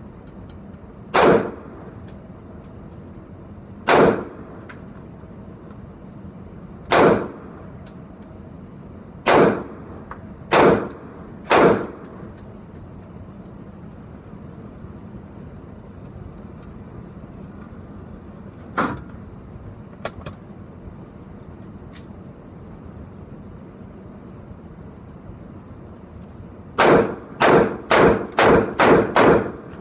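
Gunshots from a newly built lightweight AR-15 rifle at an indoor range during a function check. Six single shots a few seconds apart come first, then two fainter reports, then a rapid string of about seven shots near the end.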